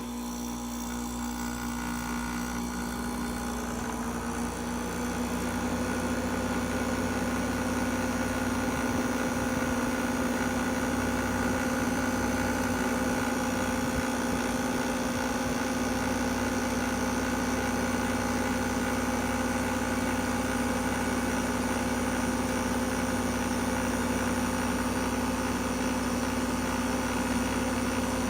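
A machine humming with a steady whine, rising in pitch and loudness over the first few seconds as it spins up, then running evenly; the owner feels the sound is not normal.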